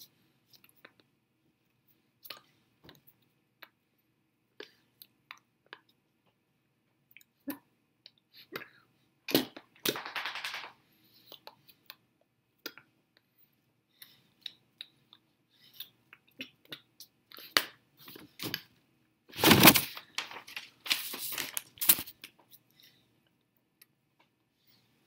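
Hands and body moving: scattered light taps, clicks and rustles, with louder rustling thumps about ten seconds in and again around twenty seconds.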